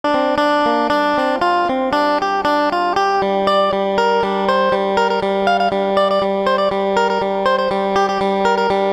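Isan phin, the plucked northeast Thai lute, playing a quick melody of plucked notes over a steady drone note.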